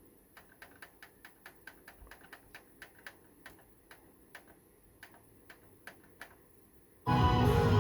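A run of faint, light clicks, roughly three or four a second and somewhat uneven, from the JVC RX-5060 receiver's controls being worked. About seven seconds in, guitar music starts suddenly and loudly through the receiver's speakers.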